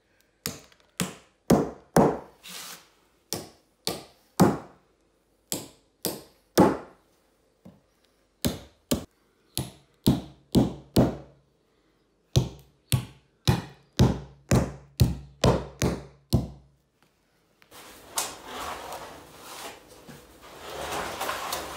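A hand tool striking the old wooden floor joists and the packed soil around them in quick, irregular sharp blows, a couple of dozen in all. About three-quarters of the way through the blows stop and a continuous scraping rustle takes over.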